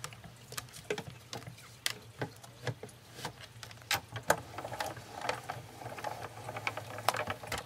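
Irregular light clicks and taps of clear plastic cutting plates and cardstock being handled and stacked by hand on a Cuttlebug die-cutting machine's platform.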